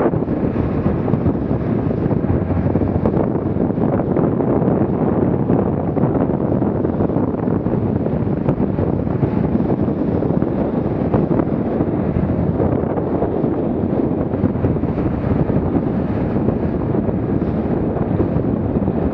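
Wind buffeting the microphone over the steady rush of a small motorboat running at about ten knots through choppy water.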